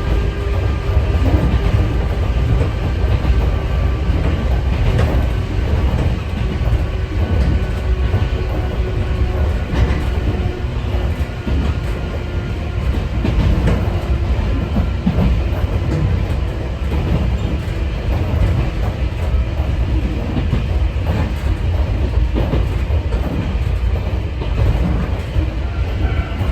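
Sangi Railway 801 series electric train (ex-Seibu 701 series) running, heard from inside the car: a steady low rumble with the MT46-style traction motor and gear whine, whose pitch slowly falls over the first half, and scattered wheel clicks over rail joints.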